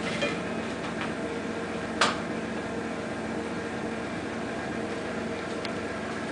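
Steady hum of a running kitchen appliance, with one sharp clink of a metal serving fork about two seconds in and a few fainter taps.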